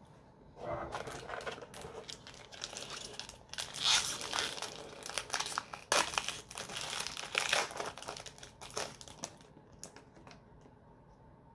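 A foil Yu-Gi-Oh booster pack being torn open and crinkled in the hands: a crackling, crinkling rustle with sharp snaps, starting under a second in, loudest in the middle and dying away about two seconds before the end.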